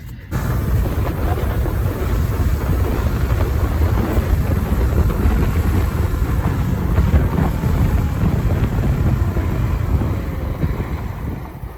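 Wind buffeting the microphone of a moving motorcycle, a dense rumbling rush with engine noise underneath. It starts suddenly and eases off near the end.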